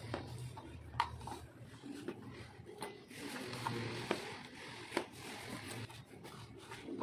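Hands mixing crumbly maida and oil dough with water in a steel bowl: soft rubbing and scraping of the dough, with a few sharp clinks against the steel about a second in and again around four and five seconds in.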